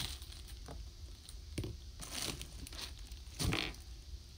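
Clear plastic wrapping of squishy toys crinkling and rustling as they are handled, in a few short bursts, the loudest about three and a half seconds in.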